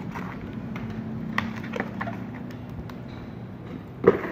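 Light clicks and knocks from handling a metal CO2 BB revolver replica and its plastic magazine cases, with one louder knock near the end, over a steady low background hum.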